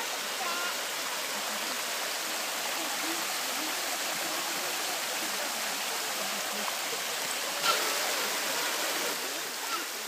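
Small waterfall and shallow rocky stream running steadily, with one brief sharp sound about three quarters of the way through.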